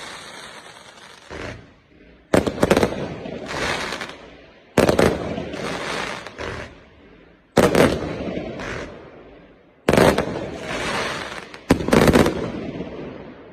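A 0.8-inch, 399-shot fireworks cake firing: five loud bursts about two seconds apart, each followed by a fading crackle.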